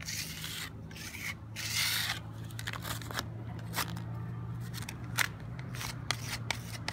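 Small hand trowel scraping and smoothing wet cement repair mortar along a crack in a terrazzo floor, in irregular gritty strokes with a few sharp clicks.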